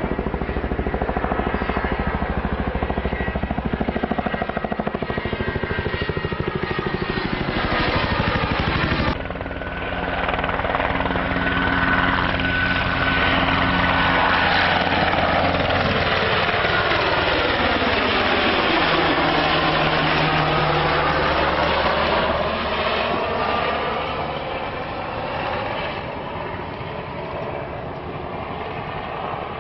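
Firefighting helicopter carrying a slung water bucket, its rotor blades beating as it flies past. The sound grows louder as it comes close, sweeps in tone as it passes about two-thirds of the way through, then fades away.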